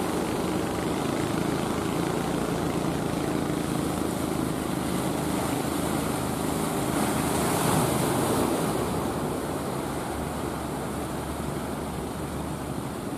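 Engines of wooden fishing boats running steadily under the wash of waves and wind on the microphone, with a louder rush about seven to nine seconds in.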